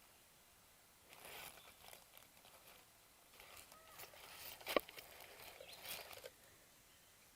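Faint, scattered rustling and crackling handling noises, with one sharp click a little past the middle.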